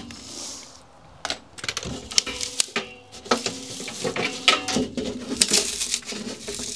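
Irregular clicks, knocks and light metallic rattles from hand-stripping foam and trim at the base of a corrugated metal wall, some strikes ringing briefly.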